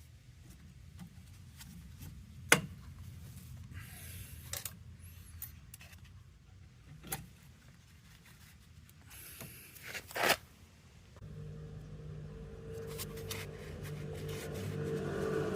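Sharp clicks and scraping as heat pump filter parts are handled, then a steady low hum that starts about eleven seconds in and grows louder.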